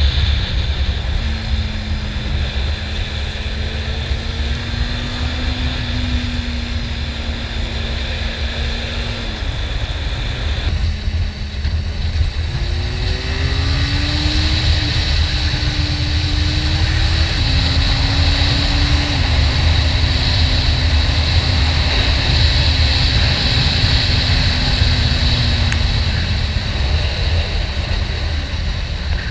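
Honda CB400 Super Four motorcycle's inline-four engine running while the bike is ridden, with heavy wind noise on the microphone. The engine note steps up and down in pitch several times, rising in a few glides about halfway through.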